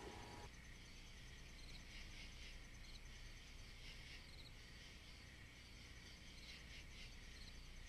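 Near silence: a faint steady hiss with a few faint, short high chirps scattered through it.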